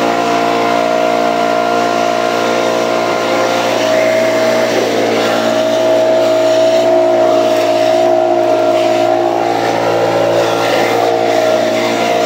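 Gas leaf blower running steadily while blowing out gutters and the roof; its pitch rises a little about four seconds in.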